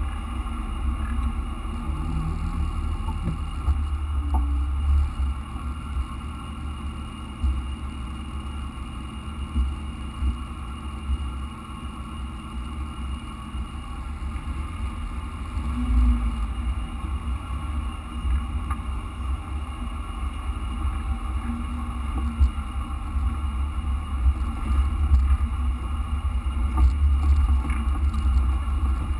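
Jeep engine running at low trail speed over a rough dirt track, heard as a deep, uneven rumble.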